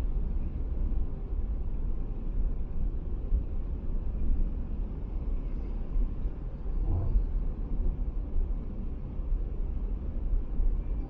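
Car driving at expressway speed: a steady low rumble of tyres on the road and the engine running. About seven seconds in there is a brief low thump as the wheels cross a joint in the road surface.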